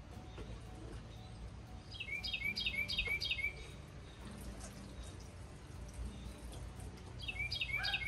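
A songbird singing two short phrases of quick repeated downward-slurred notes, about four a second: one a couple of seconds in and one near the end. Faint low background noise sits under the song.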